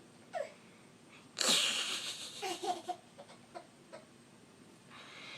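A sneeze about a second and a half in, followed by a small child's short bursts of giggling.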